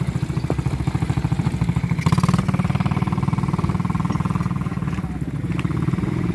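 Small ATV engine running with a steady low putter, briefly louder about two seconds in.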